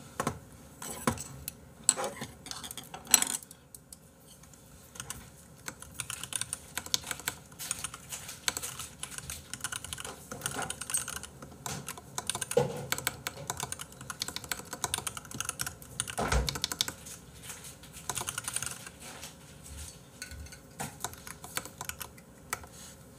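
Typing on a computer keyboard: a long run of quick, light key clicks, with a few louder knocks in the first few seconds.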